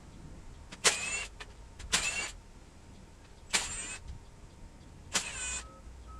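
Four hammer blows on metal, about a second or so apart, each ringing briefly: pounding on a stuck bolt to break it loose.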